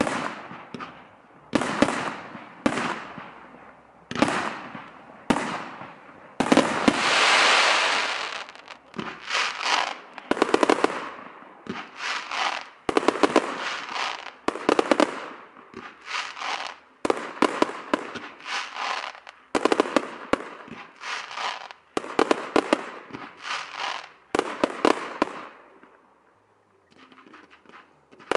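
Fireworks display: a rapid run of aerial shell bursts, each a sharp bang followed by crackling, some in quick clusters. About six seconds in comes a loud rushing hiss lasting over a second. Near the end the firing dies away briefly before the bursts start again.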